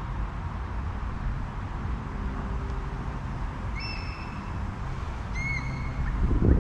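Two short, clear bird calls, each a single held note, about four and five and a half seconds in, over a steady low rumble.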